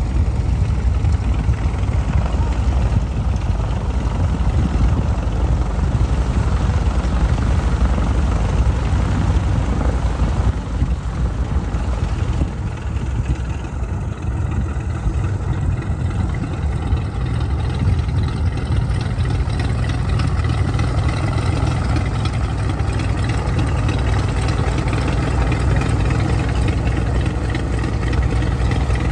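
Piston engines of vintage single-engine propeller aircraft running as the planes taxi, a steady low drone that dips briefly about eleven seconds in.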